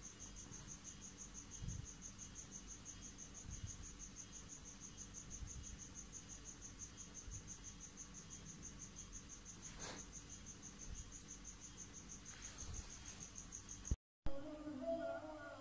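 Cricket chirping: a steady high trill pulsing about five times a second, with a few soft low bumps under it. It cuts off abruptly near the end.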